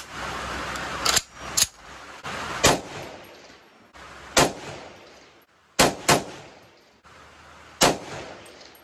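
Shots from an M1A, a semi-automatic rifle in 7.62x51 / .308, fired one at a time from a bench rest: about seven sharp reports at uneven intervals, two of them close together about six seconds in.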